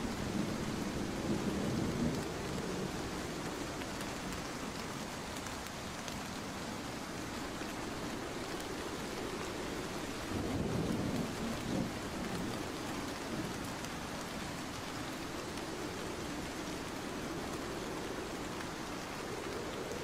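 Steady heavy rain falling, with low rumbles of thunder: one fading away in the first two seconds and another about ten seconds in.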